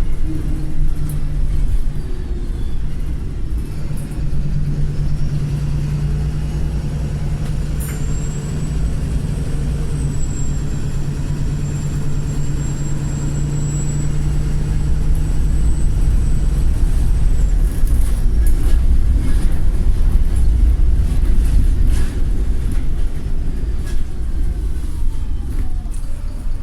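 Wright Pulsar bus's diesel engine running under way, with a thin, high-pitched steady whine from about eight seconds in to about seventeen seconds: the squealing turbocharger. In the later part the engine grows louder, with scattered sharp clicks and rattles.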